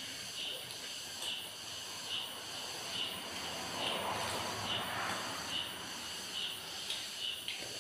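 Faint insect chirping: short, even chirps repeating a little more than once a second over a steady high hiss.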